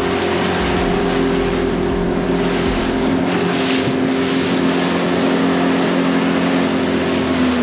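RIB's motor running steadily under way, a constant engine hum with wind and water hiss over it. Its pitch dips slightly near the end as the engine eases off.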